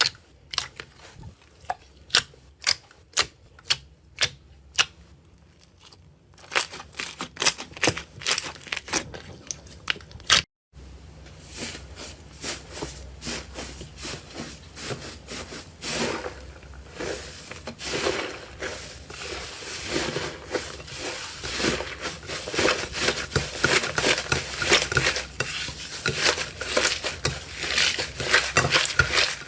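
Slime being pressed and worked by hand: sharp pops about twice a second, growing denser, then after a cut about ten seconds in, a continuous crackling and crunching.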